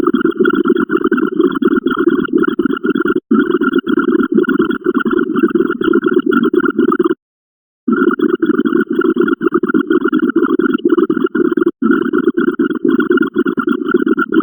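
Rapid run of repeated synthetic sound effects, several a second, with short silent breaks about 3 seconds in, for over half a second around the middle, and briefly near the end.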